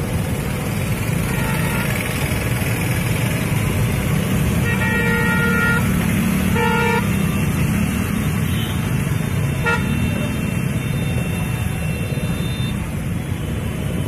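Street traffic of motorcycles and scooters running through a flooded road. A vehicle horn honks about five seconds in, again a second or so later, and briefly once more near ten seconds.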